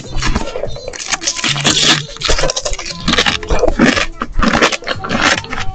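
Loud eating sounds: crunching and chewing in quick, noisy bursts, several a second.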